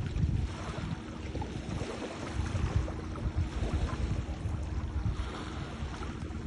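Wind buffeting the microphone in uneven gusts, a low rumble that rises and falls.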